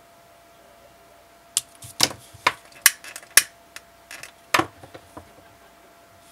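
A quick run of sharp clicks and snips starting about a second and a half in: scissors snipping small pieces of grosgrain ribbon, then a long-nosed utility lighter clicked to light its flame for heat-sealing the cut ends.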